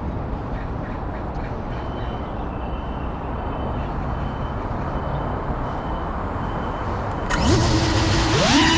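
Steady low outdoor rumble. Near the end, the GEPRC Cinelog 35 cinewhoop's motors start with a sudden jump in level and spin up with a rising whine, heard close up from the GoPro on the drone.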